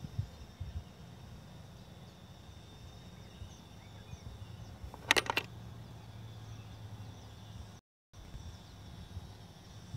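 Outdoor ambience with a steady low hum and a faint, steady high tone, broken about five seconds in by a quick run of three or four sharp clicks. The sound cuts out completely for a moment about eight seconds in.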